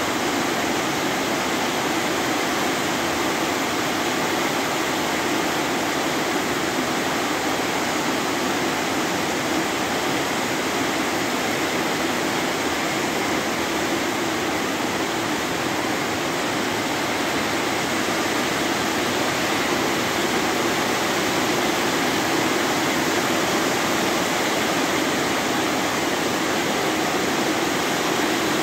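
Heavy rain falling steadily on trees and roofs, a dense, even hiss with no breaks.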